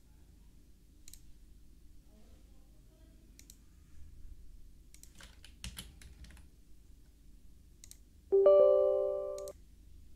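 Scattered computer mouse clicks and a short run of keyboard typing over a faint low hum. About eight seconds in comes a loud electronic computer chime of several stacked tones, which rings for about a second and then cuts off.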